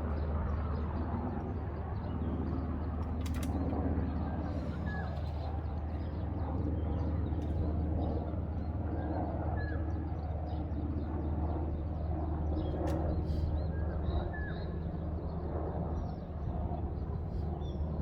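Birds chirping and calling now and then over a steady low hum.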